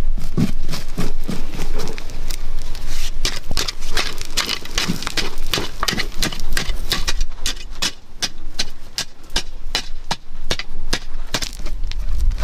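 A metal blade digging and scraping into dry, crumbly red soil in quick, irregular strokes, with loose earth and small stones rattling. The strokes come faster and crisper from about three seconds in.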